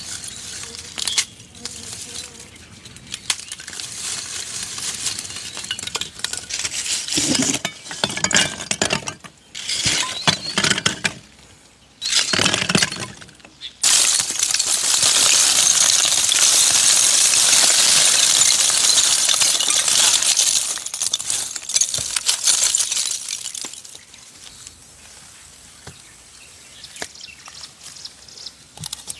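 Lumps of charcoal clinking and clattering as they are handled and tipped into a clay stove. About halfway through a long continuous pour of charcoal rattles in, then dies away after several seconds. Quieter handling of wet clay follows near the end.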